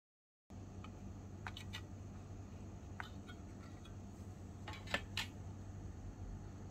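Small clicks, taps and light scrapes of fingers working a miniature waffle mould as a tiny baked waffle is prised out of it, over a steady low hum. The sound starts after half a second of silence, and the loudest clicks come about five seconds in.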